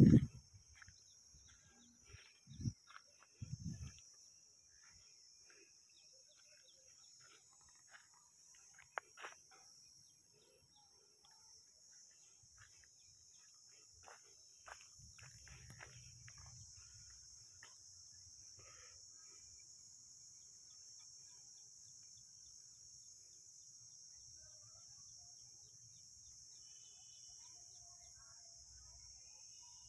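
Faint rural outdoor ambience: scattered small chirps over a steady high hiss, with a few low thumps on the microphone in the first four seconds.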